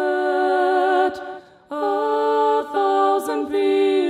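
Female lead vocal and harmony sung a cappella, heavy with reverb and stereo delay repeats, holding long notes with a short break a little over a second in. The delay repeats are not sent to the reverb, which makes them sound dry and partly chopped off against the reverb-soaked lead.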